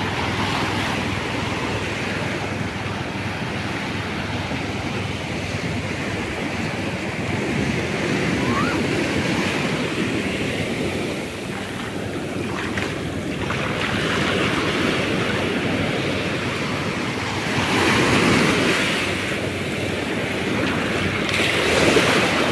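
Ocean surf breaking on a sandy beach, the wash swelling louder every few seconds as waves come in, with wind on the microphone.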